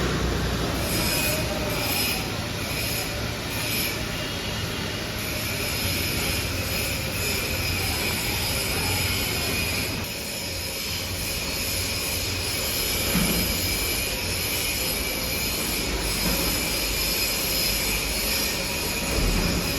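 Forging press machinery running: a steady mechanical noise with high-pitched squealing whines, and a single thump about two-thirds of the way through.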